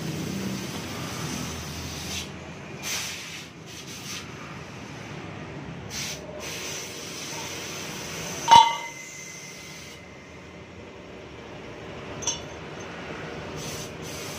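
Metal parts handled while a blower fan impeller is worked off its motor shaft: a few brief scrapes, then one sharp ringing metallic clink a little past the middle, and a lighter click near the end.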